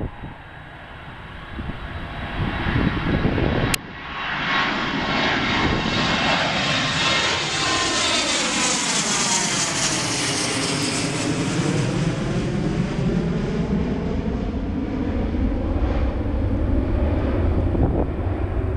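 Twin-engine jet airliner on final approach: a loud, steady rushing engine drone with a hollow sweeping tone over it that dips and rises again. It jumps up in level about four seconds in, after a quieter stretch.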